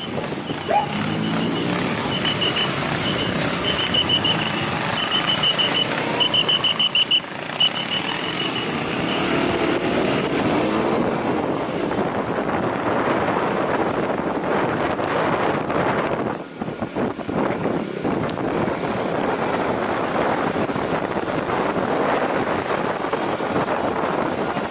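Steady engine and road noise from a motorcycle riding through traffic. During the first eight seconds it is overlaid by short trains of rapid high-pitched beeps, repeating about once a second.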